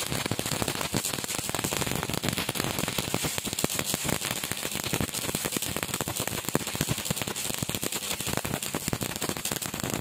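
Stick-welding arc crackling steadily as a flux-coated electrode burns and lays a weld on steel.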